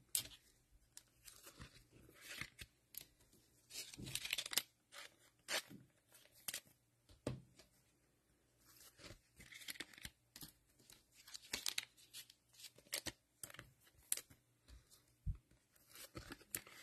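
Trading cards being slid into plastic sleeves and handled: faint, scattered rustling and scraping with occasional sharp ticks.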